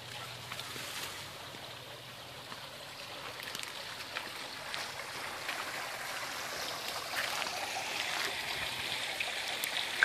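Water splashing steadily from a tiered stone garden fountain. The sound grows gradually louder toward the end.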